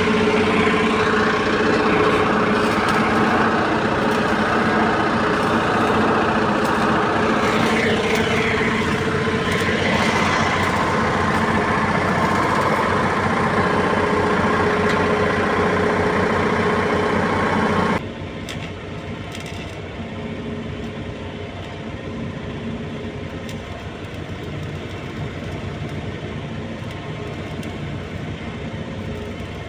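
Electric arc welding crackling loudly over a steady engine for about eighteen seconds; then the arc stops suddenly and only the engine is left running.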